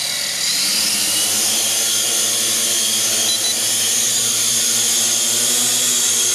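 Huajun W606-3 quadcopter's four brushed motors and propellers whining at a steady high pitch, the pitch rising slightly at first; the drone lifts off near the end.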